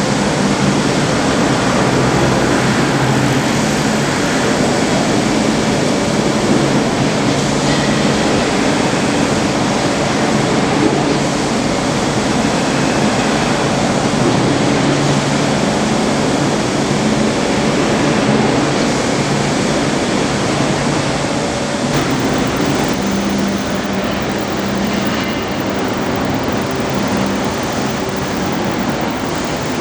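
Steady construction-site and city noise: a continuous rumble of machinery and traffic with a low engine hum, easing slightly in the last few seconds.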